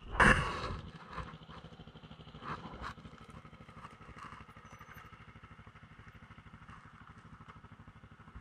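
Dirt bike engine idling with a steady, rapid low putter. A brief loud rustle or bump comes just after the start, then a few light clicks.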